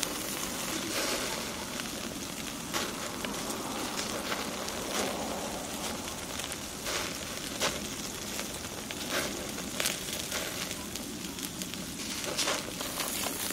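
Pork-belly-wrapped leek grilling on a wire mesh over an open wood fire: fat dripping into the flames sizzles steadily while the fire crackles with scattered sharp pops.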